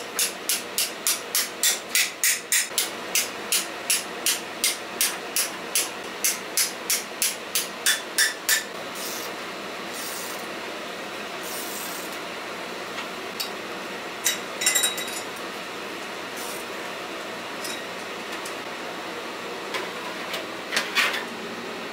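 Hand-tool work on wall-mounting hardware: a fast, even run of sharp taps, about three a second, stops after about eight seconds. Then a steady hiss, with a few separate knocks as pipe fittings are handled.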